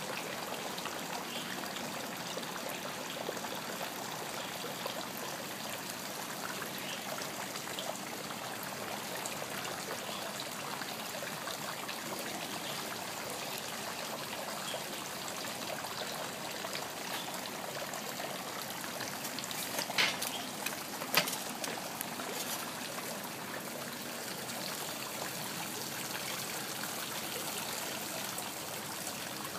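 Steady trickle of running water in a fish pond. About two-thirds of the way through come two short sharp sounds, about a second apart.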